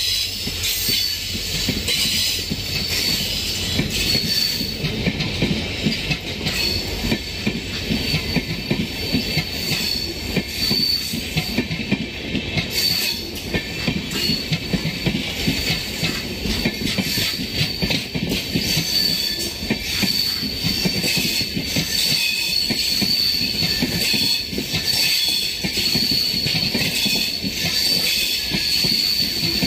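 Passenger train coaches rolling past: a constant rapid clatter of steel wheels on the track, with a steady high-pitched wheel squeal over it.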